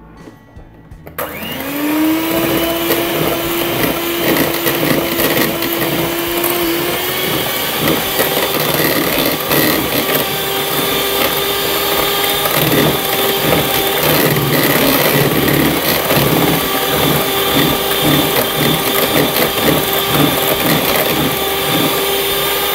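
Electric hand mixer with twin wire beaters running in a bowl, beating egg yolks into whipped egg whites and sugar for cake batter. The motor starts about a second in with a quick rising whine, then holds a steady hum, its pitch stepping up slightly about seven seconds in.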